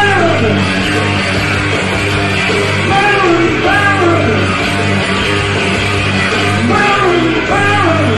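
Live rock music in a rough concert recording: a man singing with electric guitar over a drum machine and a pre-recorded guitar track.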